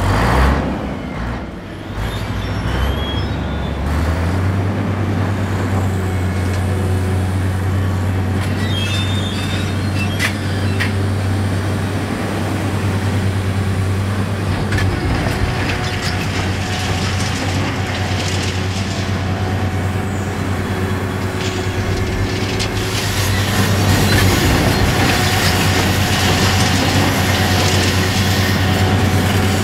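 Demolition excavator at work: a steady low diesel engine drone with scattered knocks and clanks of debris, growing louder and busier near the end.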